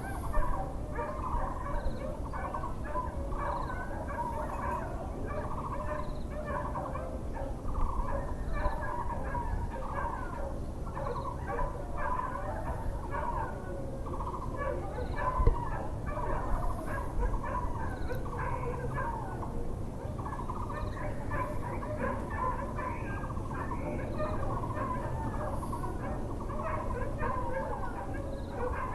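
A dense chorus of birds calling and chattering over a steady low background rumble, with a faint high chirp repeating about every second and a half.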